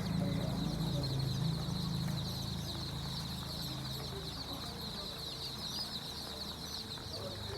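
A flock of chickens calling, with many overlapping high chirps forming a steady chorus. A low drone underneath fades about halfway through.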